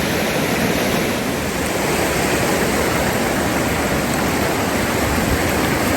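Rushing creek water, a steady, even rush with no let-up.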